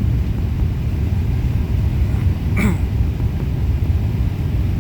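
Steady low rumble of airliner cabin noise from the jet engines and airflow. A brief short sound cuts through about two and a half seconds in.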